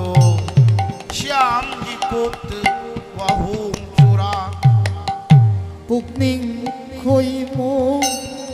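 Khol barrel drums playing a kirtan rhythm. The deep bass strokes slide down in pitch and come in clusters, with sharp slaps between them. A held melody with a wavering high line runs over the drums.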